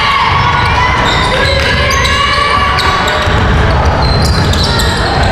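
A basketball bouncing on a gym court during play, among many short high squeaks and voices.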